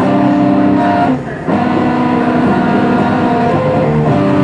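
Background music: held chords that change every few seconds, with a brief drop in level about a second in.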